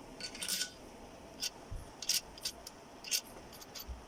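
Scattered light clicks and scrapes of small metal engine parts being handled, about nine short ticks at uneven intervals, with a couple of soft low thumps.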